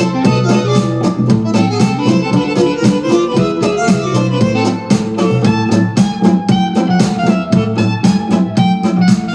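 Music with a quick, steady beat, played loud through a pair of Technics DV290 180 W speakers.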